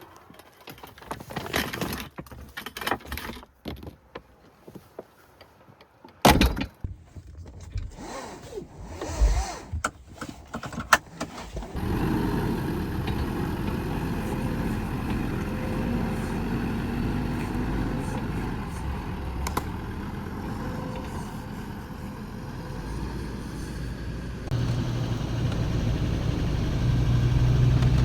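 Scattered knocks, clatter and rustling of camp gear being handled and packed. About twelve seconds in, a vehicle's engine and road noise come in and run steadily, with a deeper steady hum and a rise in level near the end.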